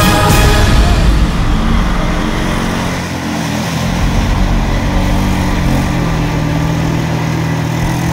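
A Polaris ATV's engine running and revving as the quad ploughs through deep muddy water, its pitch rising and falling with the throttle. Background music fades out in the first second.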